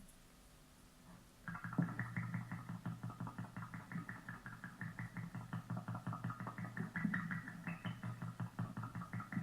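A rapid, evenly repeating chirp noise, about five chirps a second, starting about a second and a half in and keeping a steady pace.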